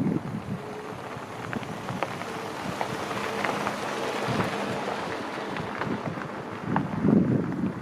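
Wind buffeting the microphone outdoors, a steady rough rushing with scattered crackles and a stronger gust about seven seconds in.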